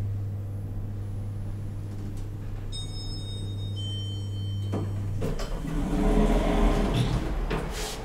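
Elevator car running with a steady low hum that stops about five seconds in as it reaches the floor. A two-note electronic arrival chime sounds about three seconds in. In the last few seconds the doors slide open with a louder rumbling, knocking noise.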